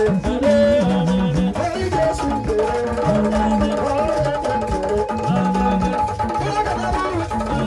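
Live band music: drums and hand percussion keeping a steady beat under melody lines that slide in pitch.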